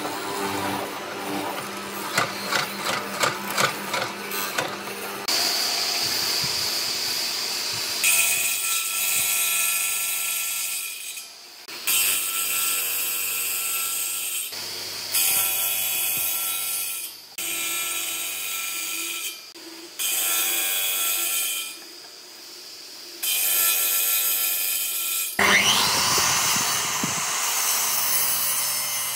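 Woodworking machines at work in turn: a hollow-chisel mortiser plunging into hardwood in a quick series of strokes, then a circular saw blade running and cutting into a timber beam in several short passes. Near the end a miter saw's motor spins up with a rising whine and cuts through wood.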